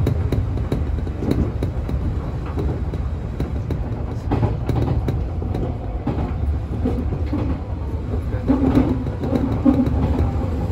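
Nankai 1000 series electric train running at speed, heard from inside the front car: a steady low rumble of wheels on rail, broken by irregular clicks as the wheels pass over rail joints and points.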